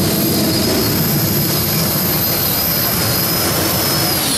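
Pulling tractor's engine running hard under load: a loud, steady rush with a thin high whine that starts to fall just before the end.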